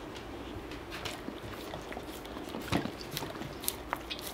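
A boxer dog licking a frozen popsicle: soft, irregular wet licks and tongue clicks, one a little louder almost three seconds in.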